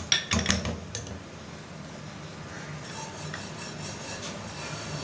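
Spatula scraping and knocking against a cooking pot of thick tomato ketchup several times in the first second, then a faint steady hum.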